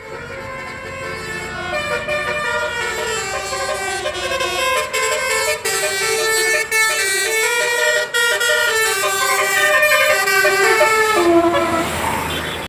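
Indonesian bus 'telolet' multi-tone horn playing a tune: a run of short held notes that step up and down in pitch without a break.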